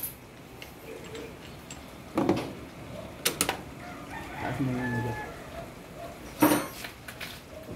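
A ratchet wrench with a long socket extension being worked on an engine mount bolt: a few sharp metal clanks, about two and three seconds in and again after six seconds.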